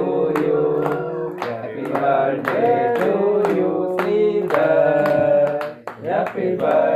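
A group of men singing a birthday song together, clapping along in a steady beat of about two claps a second.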